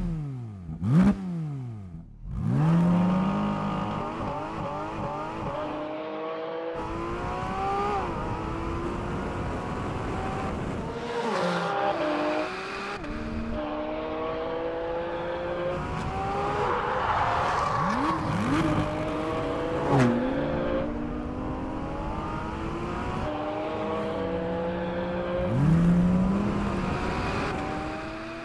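Porsche 718 Cayman GT4 RS's naturally aspirated flat-six running hard on track. Its pitch climbs steeply through each gear and drops back at every upshift, with a few sharp throttle blips on downshifts.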